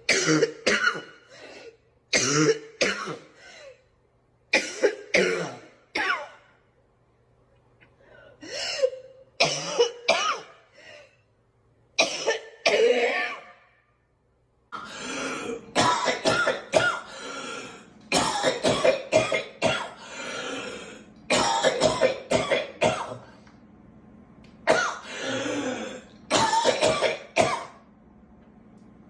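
Different people coughing and clearing their throats, in sharp fits of two or three coughs at a time. The recording changes about halfway through, and the coughing comes in denser, longer fits after that.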